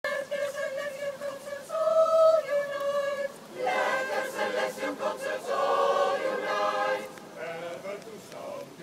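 Mixed choir of men's and women's voices singing a cappella in held chords. The sound fills out into fuller harmony about three and a half seconds in and thins out after about seven seconds.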